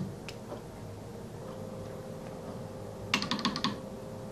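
Clicking of a Morse hand key being keyed, with the T/R switch relay clicking over between transmit and receive: a single click at the start and another just after, then a quick run of about eight clicks about three seconds in.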